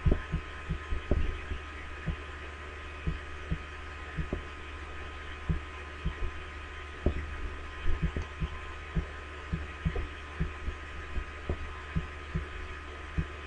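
Irregular soft low thumps, one or two a second, over a steady electrical hum.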